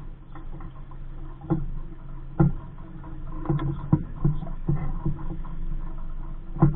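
Small waves slapping against the hull of a Capri Coronado 15 sailing dinghy moving under sail in a light breeze: a run of irregular low knocks and splashes, coming faster in the second half.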